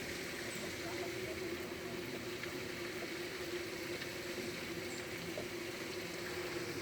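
Steady rush of water from a pool's waterfall feature still running, with a steady low hum underneath.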